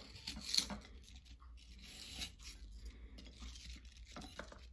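Small kitchen knife cutting and scraping through apple flesh, trimming off leftover peel and core in short, faint strokes, one louder stroke about half a second in.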